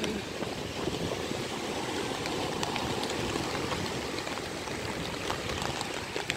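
Steady rush of rain and small breaking surf waves on a beach, with scattered sharp raindrop ticks through the second half.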